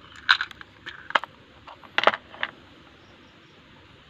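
A few sharp clicks and taps of small plastic and metal parts being handled by hand, about five over two and a half seconds, the loudest a double click about two seconds in.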